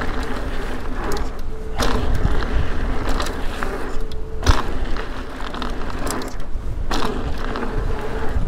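Ibis Ripmo mountain bike rolling fast down a dry dirt trail: continuous tyre and rattle noise over the ground, with a faint steady hum coming and going. Three sharper knocks, about two to three seconds apart, come as the wheels hit bumps.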